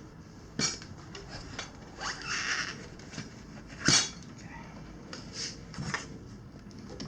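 Tire irons and tools being handled during a tire change: scattered clicks and knocks, a short scraping rub about two seconds in, and one louder sharp knock about four seconds in.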